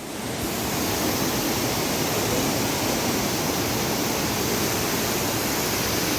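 Waterfall rushing: a steady, loud roar of falling water that swells over the first second and then holds even.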